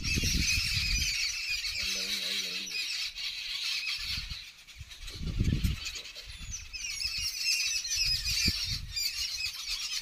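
Sparrows fighting, with a dense, unbroken chatter of high, rapid chirps and squeaks. Bouts of low rumble run under it.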